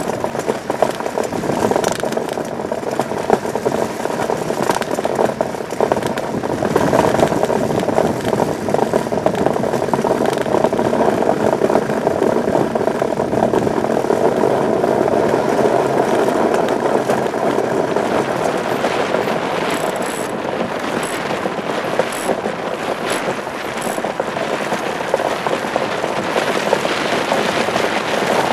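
Iceboat's steel runner blade skating fast over hard pond ice: a loud, steady, rushing drone, with a few sharp clicks about twenty seconds in.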